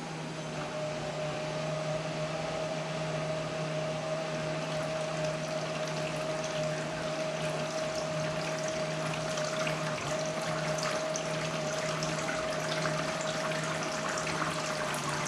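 Small 500-gallon-per-hour 12-volt live-well pump running from a 6-volt battery, below its rated voltage. It gives a steady electric motor hum with one even tone, over the noise of water splashing and bubbling as it circulates water in the cooler.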